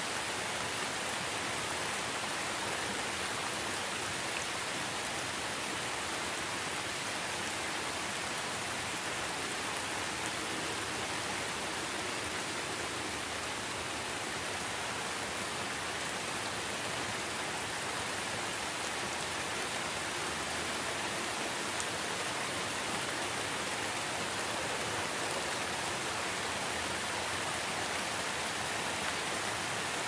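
Steady rain falling on a puddle and wet ground, an even, unbroken hiss with no single drops standing out.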